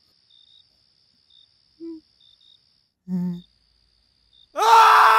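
Faint crickets chirping, with short high chirps every second or so over a thin steady hiss. About three seconds in comes a brief low voice sound, and near the end a person cries out loudly in a high, held voice.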